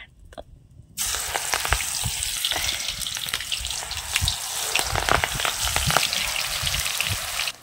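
Mustard-green and gram-flour pakora batter frying in hot oil in an iron kadhai, sizzling steadily with crackles. The sizzle starts about a second in and cuts off suddenly near the end.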